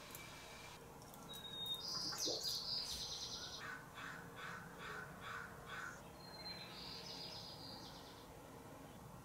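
Harsh, caw-like calls. A brief whistle leads into a rasping call, then about six harsh calls follow in an even run, and a second whistle and rasping call come later.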